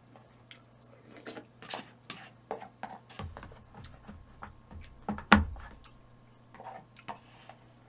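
A person eating: chewing with scattered small wet clicks, and one louder thump about five seconds in.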